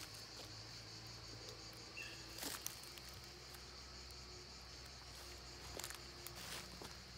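Steady high-pitched chirring of insects, with a few soft crunches of footsteps on dry, stony ground.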